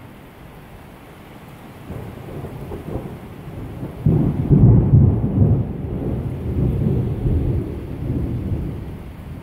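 Thunder over steady heavy rain: a low rumble builds, breaks into a loud peal about four seconds in, then rolls on and slowly fades.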